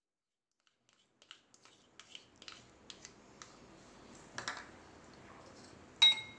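A spoon tapping and scraping yogurt out of a plastic bowl into a glass bowl, a run of light clicks and a short scrape. Near the end, one sharp clink that rings briefly, as kitchen dishes knock together.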